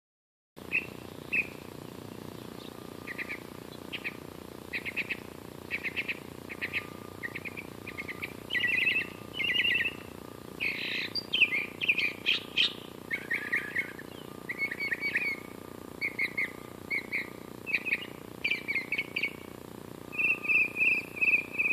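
A songbird singing a long string of short, varied phrases, some repeated a few times in a row, with a quick run of repeated notes near the end.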